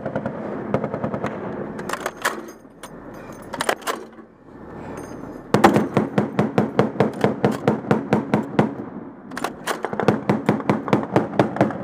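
M2 .50 caliber heavy machine gun firing from the gunner's position: a few scattered shots in the first half, then two long bursts at a steady rate of about eight rounds a second, the first starting about five and a half seconds in and the second about nine and a half seconds in. The gun is being run hard at its cyclic rate, which overheats it.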